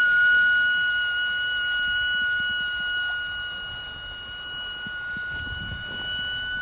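Micro electric ducted fan of a scratch-built RC English Electric Lightning jet, powered by a 3S pack, screaming at high throttle: one steady high whine with a constant pitch, dipping a little in loudness in the middle and swelling again near the end.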